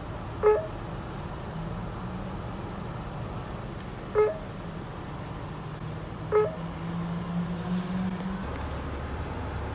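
Car engine idling with a steady low hum that drops lower near the end. Over it come three short electronic beeps from the drive-thru ordering touchscreen as its buttons are pressed.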